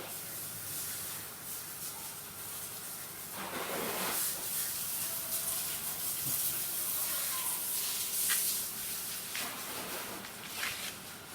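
A steady hiss, with a few faint brief sounds about three and a half, eight and ten and a half seconds in.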